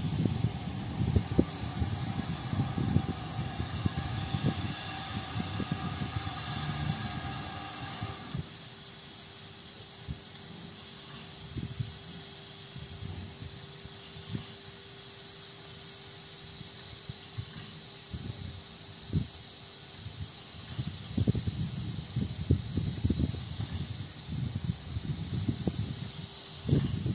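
Ol49 steam locomotive at a station: a high squeal of several steady tones for about eight seconds that cuts off suddenly, followed by a steady low hum with a faint hiss of steam. Irregular low rumbling comes and goes at the start and again near the end.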